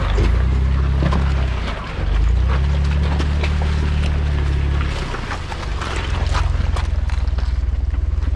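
Jeep Wrangler engine running at low revs as it crawls over a wet, rocky trail, with tyres crunching on gravel and stones. The engine note shifts about two and five seconds in, then settles into a fast, even pulse.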